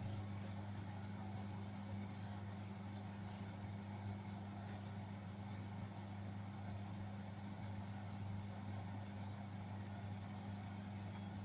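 BEKO washing machine running its drain and spin programme: a steady low hum that holds one pitch, with no rise or fall.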